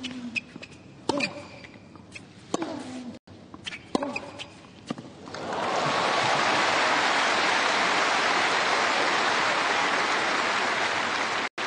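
Tennis rally: sharp racket strikes on the ball about every second and a half, then from about five and a half seconds in the crowd breaks into steady applause as the point ends.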